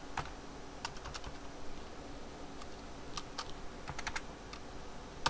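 Computer keyboard keys being pressed: faint, irregular keystrokes with pauses between them, coming in a quicker cluster about three to four seconds in.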